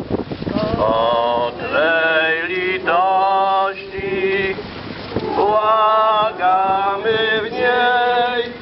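Voices singing a slow chant or hymn in long held notes that slide into pitch, with a break of a second or so about four seconds in.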